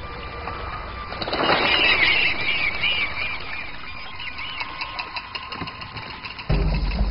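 Film soundtrack: a tense swell with high, wavering squeal-like calls. Low drumming comes in near the end.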